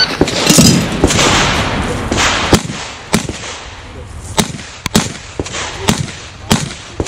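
Shot timer's start beep, then a clatter as kitchen utensils are dropped, then a string of shots from a Smith & Wesson 325 Thunder Ranch .45 ACP revolver, roughly half a second to a second apart.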